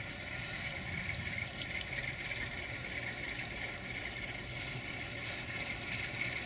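CFR Class 060-DA (LDE2100) Sulzer diesel-electric locomotive running steadily as it slowly hauls a freight train. Under the low engine drone there is a continuous high whistle, the sound that earned this unit its nickname "Fluieroasa" (the whistler).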